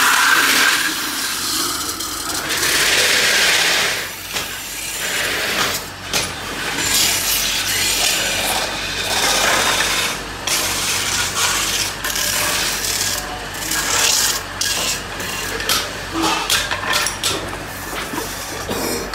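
Metal being worked by hand tools and machinery: a harsh scraping and rubbing that swells and fades, with many short clicks and knocks.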